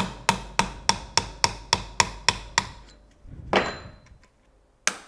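Brass hammer striking a brass drift against the race of a CV joint, about ten quick, evenly spaced taps at roughly three a second, working to free a ball bearing wedged in the cage. The tapping stops about two and a half seconds in, followed by a brief scrape and a single sharp click near the end.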